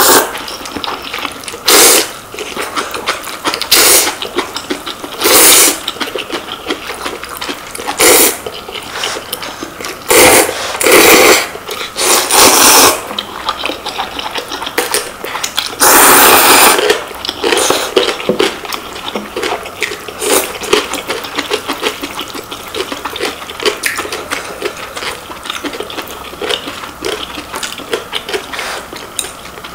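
Two people slurping Shin Ramyun instant noodles: loud slurps about every two seconds for the first half, one long slurp past the middle, then quieter chewing and eating noises.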